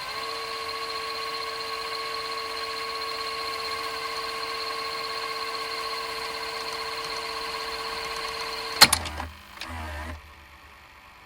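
VHS VCR fast-winding a tape at full speed, a steady whine, until about nine seconds in, when the transport stops with a loud clunk. A short whir and a couple of knocks from the mechanism follow.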